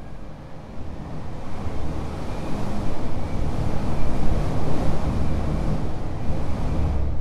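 Rushing, wind-like noise with a deep rumble, swelling over the first few seconds and then holding steady, as the three candle flames are put out.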